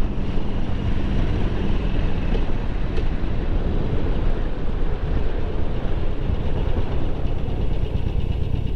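Harley-Davidson Sportster 1200's air-cooled V-twin running as the motorcycle slows from about 40 mph toward a stop, with wind noise on the microphone.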